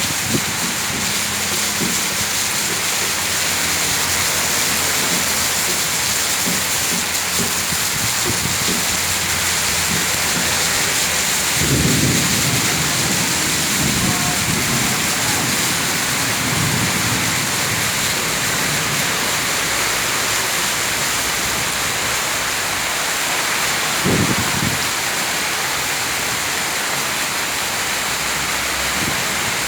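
Heavy rain falling steadily as an even hiss, with brief low rumbles about twelve seconds in and again near twenty-four seconds.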